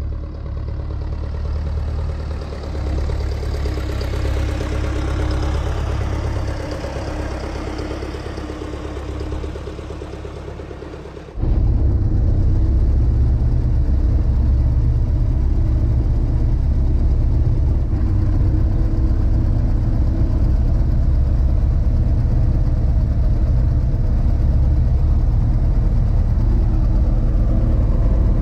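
Tractor engine running steadily, heard from inside the cab as the tractor drives through snow. About eleven seconds in the sound cuts abruptly to a louder, deeper, steady engine note.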